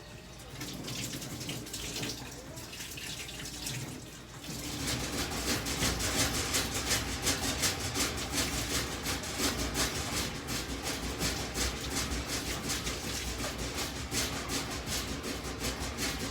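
Hair dryer blowing with a steady rushing noise; it gets louder and stronger about four seconds in, as if switched to a higher setting or brought closer.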